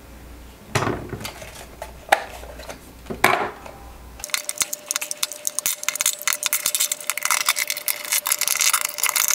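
Plastic RC transmitter being taken apart by hand: a few knocks as plastic parts are pulled off, then, about four seconds in, a dense run of small scratchy clicks and rubbing from working on the case.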